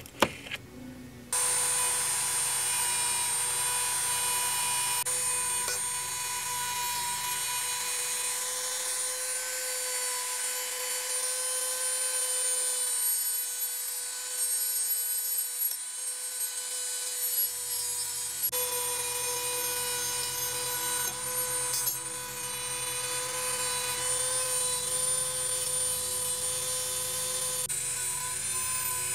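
After a couple of light clicks, a handheld rotary tool fitted with a small wire wheel brush starts about a second in and runs with a steady high whine. It is brushing old paint and grime off a die-cast metal toy tractor body.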